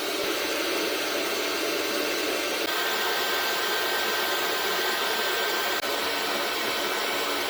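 The blower fan of a Maxpeedingrods 5 kW 12 V diesel air heater running steadily through its shut-down cool-down cycle, purging heat and fumes from the unit after the burner has been switched off. A faint, thin, steady whine sits over the rushing air.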